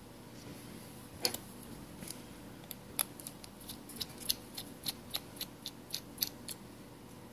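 Precision screwdriver working the small screws in a Samsung Galaxy S6 Edge's frame: a run of light metallic clicks, settling to about three a second.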